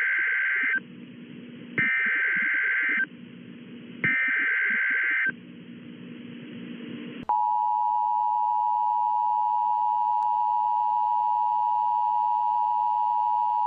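Emergency Alert System SAME header: three bursts of warbling digital data tones, each about a second long with short gaps between them. About seven seconds in, the steady EAS attention tone starts and holds, announcing a National Weather Service severe thunderstorm warning.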